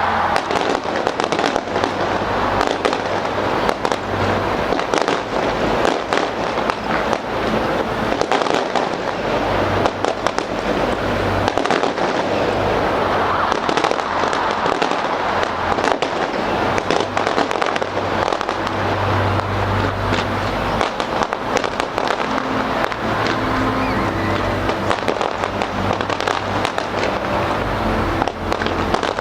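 Fireworks display with a dense, continuous barrage of bangs and crackling and no let-up.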